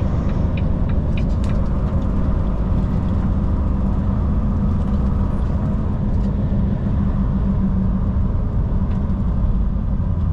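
Volvo semi-truck's diesel engine and tyre noise droning steadily inside the cab while driving, with a light, rapid ticking during the first second or so.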